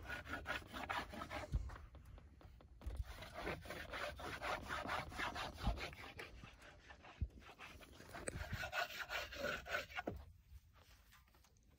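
Rubbing on the base of a sandboard by hand, quick repeated scraping strokes, treating the board so it slides better on the sand. The rubbing stops about ten seconds in.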